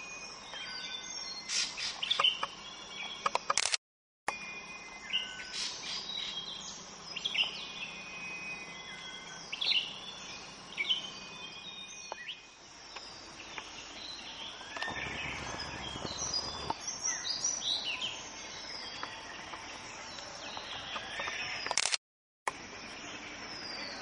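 Several wild birds chirping and calling, a mix of short sharp notes and quick downward-sliding calls. About two-thirds of the way through, a noisy rush lasts for a couple of seconds, and the sound drops out briefly twice.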